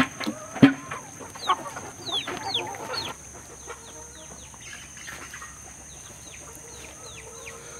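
Hens clucking as they feed on live maggots, with a few sharp knocks of beaks pecking the ground in the first second or so. About three seconds in it gets quieter, leaving faint short falling chirps over a steady high-pitched hum.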